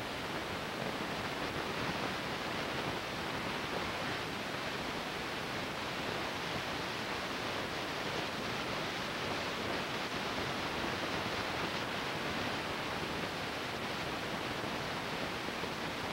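Steady, even hiss with no other sound in it.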